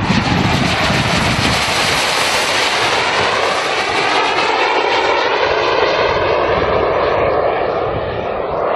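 Engine of an Iranian flying-wing drone copied from the RQ-170, flying past: a steady rushing engine noise whose pitch slowly falls as it goes by, easing off a little near the end.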